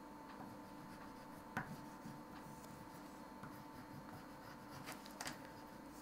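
Faint scratching of an oil pastel stick scribbled in streaks across paper, with two light taps, about a second and a half in and near the end.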